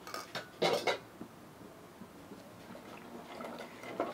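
A metal spoon stirring cornflour slurry in a small stainless steel cup, scraping and clinking against the metal, loudest in the first second, with quieter scraping after and another short scrape near the end.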